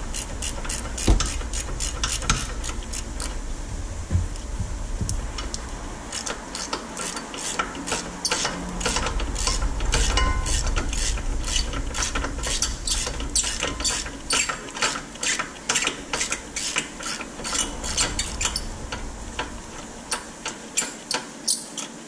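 Ratchet wrench clicking as it backs out a loosened rear brake caliper bracket bolt. A few knocks at first, then a steady run of about three clicks a second through the rest.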